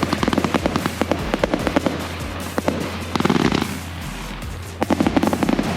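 Consumer fireworks going off in rapid succession: a dense run of sharp pops and crackles, thickening into crackling bursts twice in the second half, with music playing underneath.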